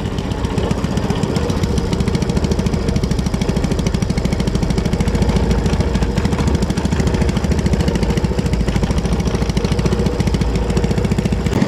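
Small petrol boat engine running steadily under way, a fast, even pulsing hum.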